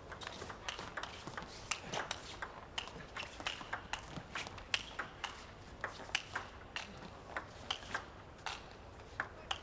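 A table tennis rally: the ball ticks sharply off the table and the players' bats in a quick, even run of about three clicks a second.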